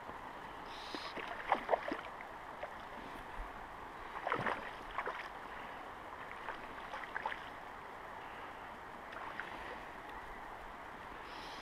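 Steady rush of river water close by, broken by a handful of short splashes and slaps of water. The loudest splash comes about four seconds in, with smaller ones before it and a few more near the seven-second mark.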